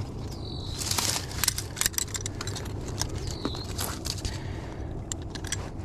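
Irregular metallic clicks, clinks and crackles from a steel muskrat trap and its wire and chain being handled among dry cattail stalks in shallow water, with two short high squeaks, one near the start and one midway.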